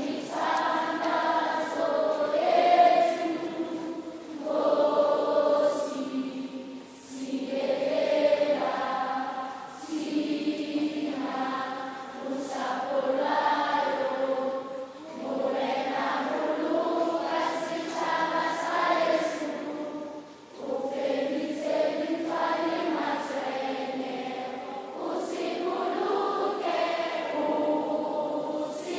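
A large crowd of primary school children singing the national anthem together, in long held phrases with short breaks between them.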